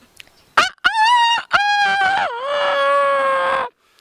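A man imitating a rooster's cock-a-doodle-doo with his voice: two short notes, then a long drawn-out call that drops in pitch, holds, and cuts off near the end.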